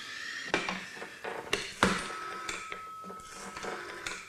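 A few sharp knocks and clicks of objects being handled, with a faint steady tone in the second half.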